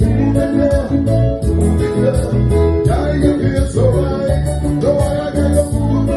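A live band plays a song: a loud, repeating bass line, guitar and a voice singing over a steady beat.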